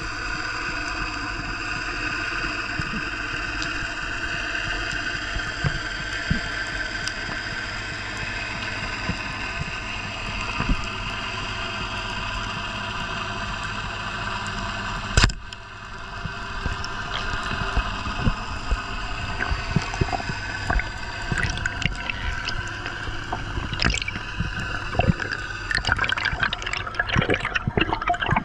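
Water gurgling and sloshing, with scattered clicks and one sharp knock about halfway; the clicks and crackling grow busier near the end.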